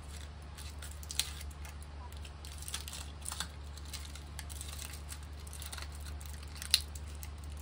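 Faint crinkling and a few small sharp clicks from an old paper cocktail umbrella being handled and pried at to open it, the loudest click near the end, over a steady low hum.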